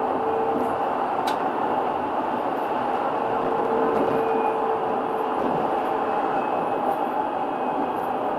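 An R 2.2 low-floor tram running along the track, heard from inside: a steady rolling noise with several faint steady tones over it. There is one sharp click a little over a second in.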